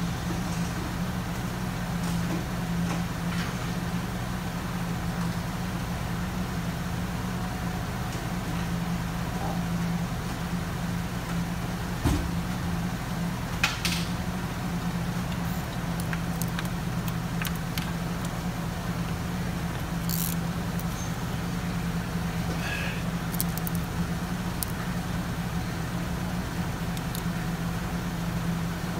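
A steady low mechanical hum, with a few scattered light clicks and knocks.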